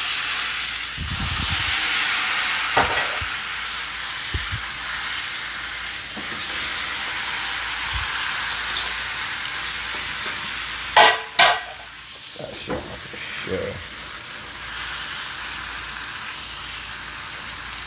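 Meat searing in oil in a cast iron skillet, sizzling steadily. The sizzle is strongest in the first couple of seconds, just after soy sauce goes onto the meat, then eases a little. A short, louder sound breaks in about eleven seconds in.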